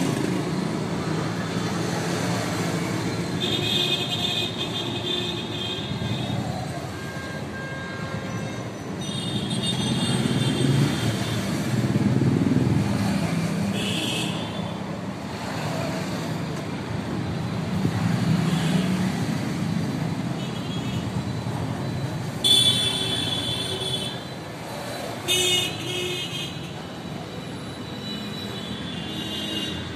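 Road traffic running steadily, with vehicle horns honking several times, in short and longer blasts; the loudest come about three-quarters of the way through.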